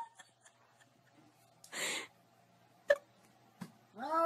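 A cat's sounds: a short breathy burst about two seconds in and a couple of faint clicks, then near the end a long drawn-out yowl begins.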